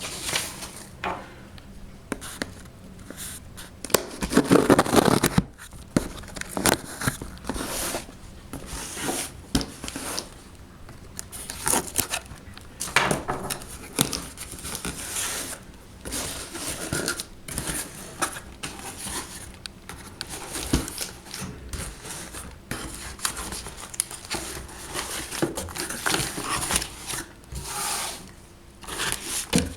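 Packaging and products being handled during an unboxing: crinkling and tearing of wrapping, with small knocks and clatters as items are picked up and put down. A louder rustling burst comes about four to five seconds in.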